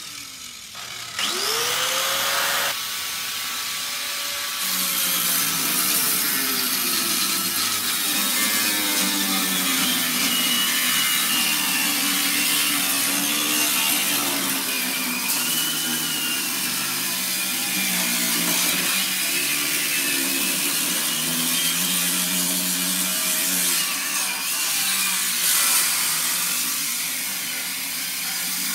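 Small angle grinder spinning up about a second in, then its cut-off disc cutting into the metal cash box of an ATM. The motor's pitch drops and wavers under load over a steady grinding hiss of disc on metal.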